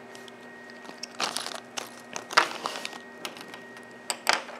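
Handling noise: small plastic zip bags crinkling and light clicks of small parts and a screwdriver set down on a tabletop, in a few short bursts, the loudest about two and a half seconds in, over a faint steady hum.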